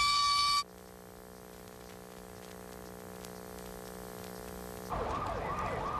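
A man's sustained high-pitched scream cuts off abruptly under a second in. A quiet, steady low droning hum follows and slowly grows louder. About five seconds in, a louder siren-like warbling tone starts, swooping about three times a second.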